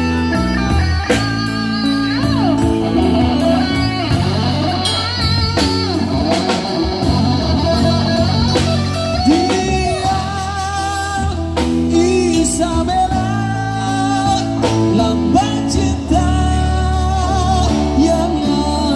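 Live rock band playing: electric guitars over a drum kit with steady cymbal strokes, and a male singer holding long notes with a wavering vibrato.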